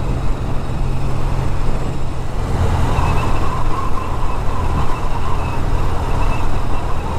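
Norton Commando parallel-twin engine running steadily while the motorcycle is ridden at road speed, with wind rushing over the microphone. A faint steady whine joins about three seconds in.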